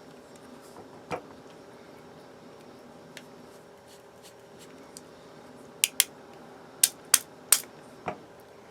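Small, sharp clicks and taps of tiny screws and a screwdriver being worked out of a pocketknife's handle. There is one click about a second in, then a quick run of about six clicks in the second half.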